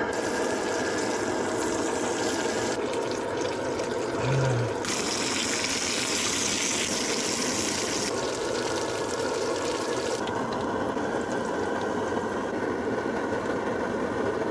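Steady rain falling, a continuous hiss, with one low thump about four seconds in.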